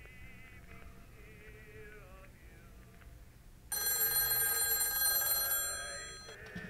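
Telephone bell ringing with a fast metallic trill. One ring starts suddenly a little past halfway, lasts about two seconds, then stops and fades. Soft background music plays before it.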